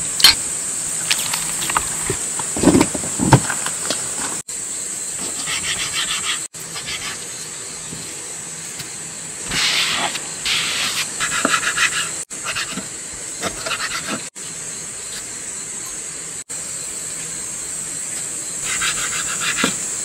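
Crickets chirring in a steady high-pitched drone, with short stretches of faster pulsing chirps now and then. The sound drops out for an instant several times.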